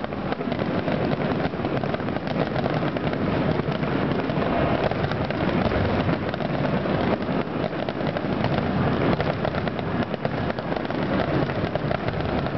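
Fireworks grand-finale barrage: aerial shells bursting one on top of another, a dense, continuous run of bangs and crackle with no pause.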